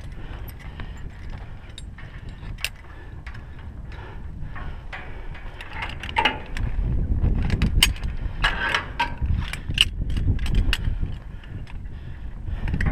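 Metal climbing hardware (carabiners and lanyard hooks) clicking and clinking irregularly against a steel tower frame as a climber moves, over a low rumble of wind on the microphone.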